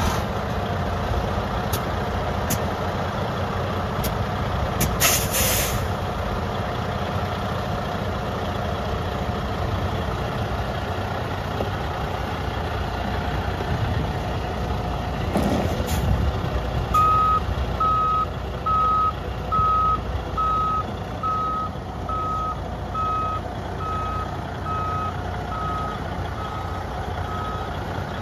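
Freightliner Columbia truck tractor's diesel engine idling steadily, with a sharp hiss of compressed air about five seconds in and a shorter hiss near the middle. From a little past halfway, a backup alarm beeps about once a second.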